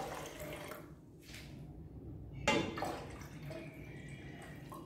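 Water poured into a glass kettle, splashing into the water already in it. The pour eases off about a second in, then picks up again, louder, about two and a half seconds in.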